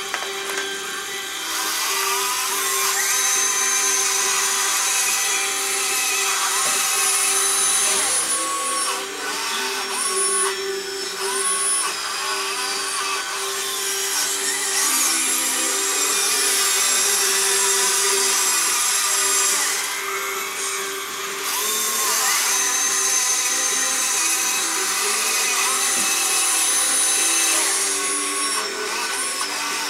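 Small electric motors and gearing of a radio-controlled Doepke Unit dragline crane whining as the machine swings and works its bucket cables, the pitch rising and falling as the motors speed up and slow down.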